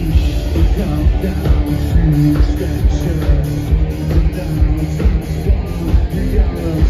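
Industrial rock band playing loud live through a venue PA: distorted electric guitar, drums keeping a steady beat, and a singer's vocals.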